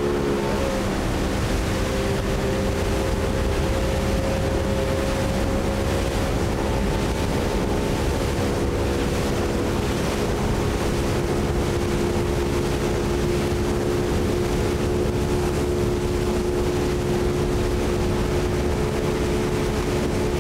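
Motorboat engine running at a steady pitch, with rushing water and wind on the microphone. The engine note shifts slightly about a second in, then holds steady.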